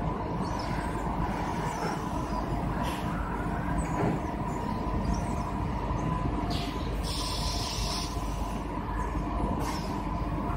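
Battery-module assembly line machinery running with a steady hum and a couple of constant tones. A few short bursts of high hiss come and go over it, most strongly a little past the middle.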